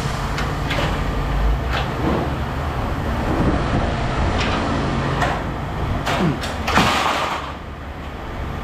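Irregular knocks and clanks, about a dozen, over a steady low rumble, with a couple of short falling squeaks about six seconds in.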